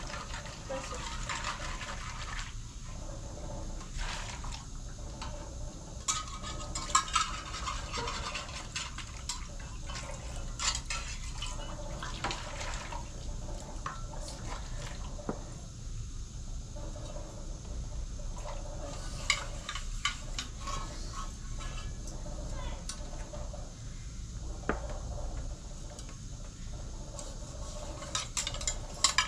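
Dishes being washed by hand in a plastic basin of water: scrubbing and splashing, with a few sharp clinks of plates knocking together.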